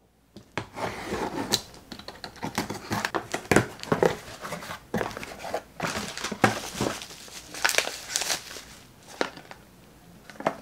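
A taped cardboard shipping box being opened by hand: tape tearing and cardboard and plastic packing crinkling and rustling, with many sharp irregular crackles.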